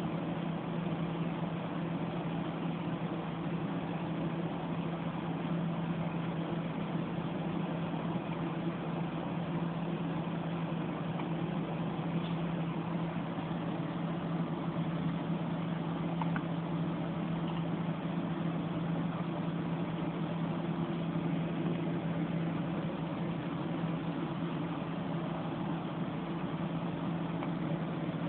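Steady machine hum: a constant low drone with an even noise over it that does not change.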